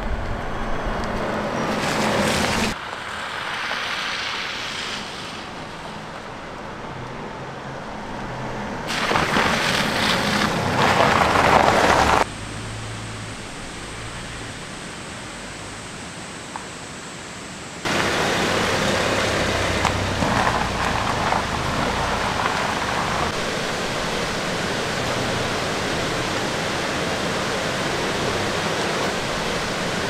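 Rushing stream water, heard across several edited clips that cut abruptly from one level to another, then a steady, loud rush for the last twelve seconds or so.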